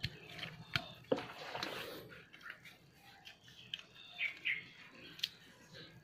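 Black electrical tape being pulled off its roll and wound tightly around a bundle of thin steel rods, with a rasping peel about a second in and scattered small clicks and rustles from handling.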